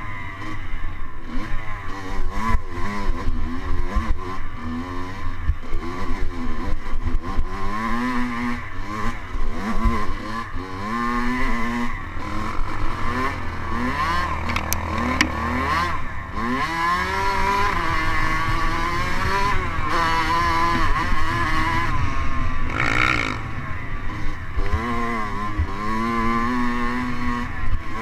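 Dirt bike engine on a rough trail, revving up and falling back over and over as the throttle is worked and gears change, its pitch rising and dropping every second or two. A short rushing noise cuts in about five seconds before the end.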